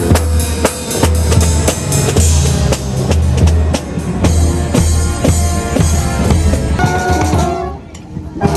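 Street brass band playing: snare and bass drums drive a steady beat under sustained horn notes. The music drops away briefly near the end before the drums come back in.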